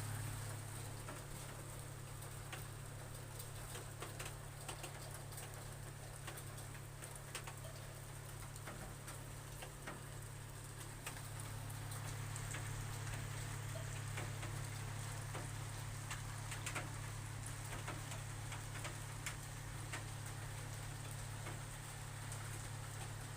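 Raindrops tapping irregularly on a roof, separate drips rather than a steady downpour, over a steady low hum.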